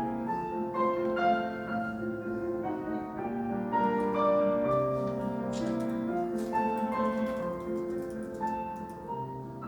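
Live classical instrumental music, with piano, playing a continuous passage of overlapping notes.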